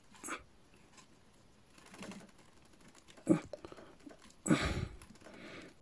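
Plastic action-figure parts being handled and pushed together by hand: a few light clicks and knocks, a sharper click about three seconds in, and a short burst of rustling noise a little later.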